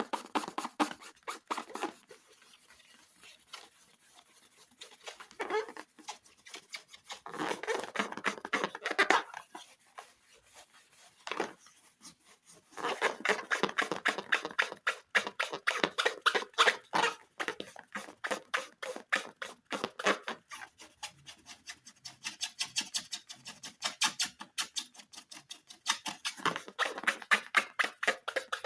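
Slime being squeezed and worked by hand, in bouts of rapid wet clicking and crackling with short pauses between them.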